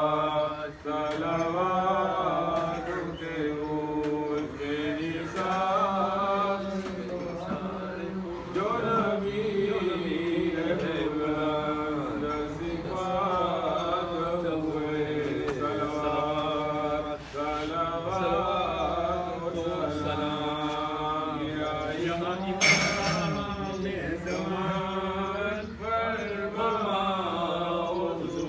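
A man chanting a munajat qasida, a devotional supplication poem, in long held, wavering melodic lines without accompaniment. A single sharp click cuts through once, about three-quarters of the way through.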